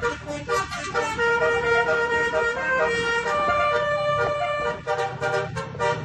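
Telolet basuri multi-tone bus horn playing a tune of held notes that change pitch every second or so, with a low rumble beneath.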